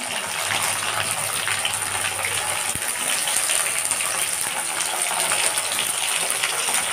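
Potato chunks and freshly added chopped tomatoes frying in hot oil in a wok: a steady sizzle with fine crackling.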